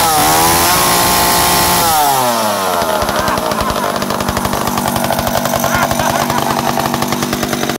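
Two-stroke chainsaw engine running at high revs. Its pitch drops twice as the throttle is let off, then it settles into a steady idle.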